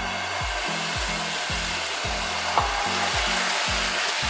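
Dosa batter sizzling with a steady hiss as it is poured onto a hot nonstick pan and spread with a ladle, with a light tap about two and a half seconds in. Background music with a steady low beat plays under it.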